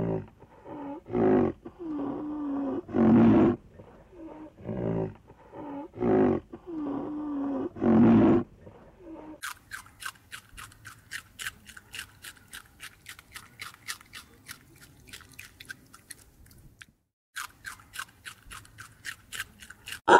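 A rhinoceros calling: a run of about a dozen pitched calls, some short, some drawn out. About halfway through, this gives way to rabbits chewing, a rapid crisp crunching at about five bites a second with a brief pause near the end.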